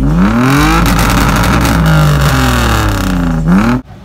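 A parked Nissan sedan's engine free-revved through its aftermarket exhaust: one long rev that climbs over the first second and falls back, then two more blips, the last one sharp. It cuts off abruptly near the end.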